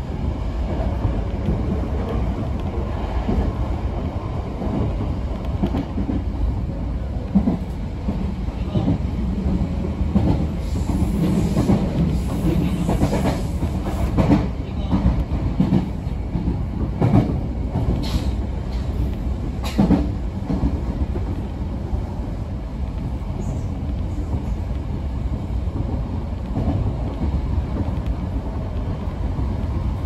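Sanyo Electric Railway electric train running on the line, heard from inside the front of the car: a steady low rumble of wheels on rails, with occasional sharp clacks from rail joints and points.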